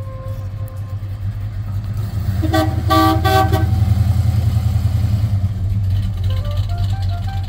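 1956 Oldsmobile 88's V8 engine running as the car drives up and past, growing louder as it nears, with a few short toots of its horn about two and a half seconds in.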